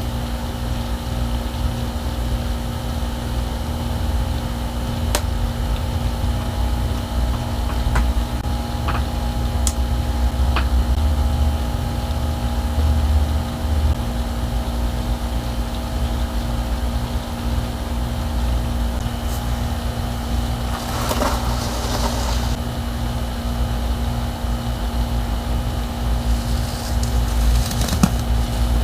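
Steady low machine hum from a running appliance motor, with a few sharp clicks and two brief crackling rustles about two-thirds of the way in and near the end.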